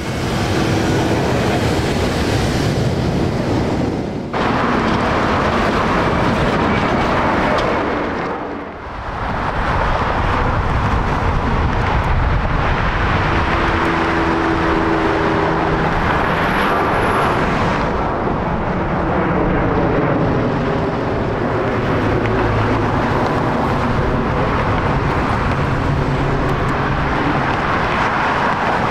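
Jet airliner engines running at an airport, a loud steady rush and rumble. It dips briefly about four seconds in and again about eight seconds in, and its tone slowly sweeps later on as an aircraft moves past.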